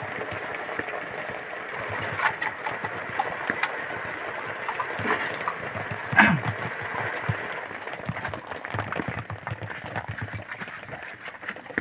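Heavy rain on a tent, with water sloshing and splashing on the flooded tent floor as things are moved about in it, and one louder thump about halfway through.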